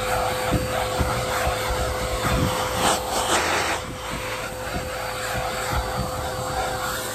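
Stick vacuum cleaner running with a steady whine while its nozzle is pushed over trunk carpet, with scattered knocks and a brief rush of hiss about three seconds in.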